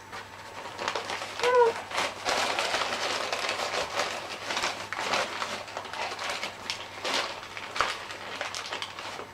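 Gift wrapping being handled and pulled at, crinkling and rustling in a continuous run of crackly rustles.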